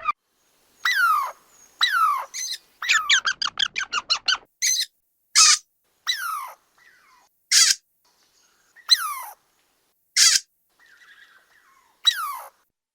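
Squirrel calling: sharp, high squeals that fall in pitch, repeated with pauses, and a fast run of short chirps about three seconds in.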